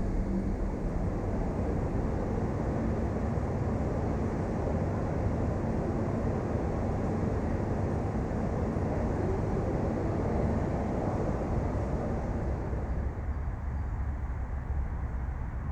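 Distant city rumble: a steady low wash of traffic noise from across a town, with no single vehicle standing out. It thins a little near the end.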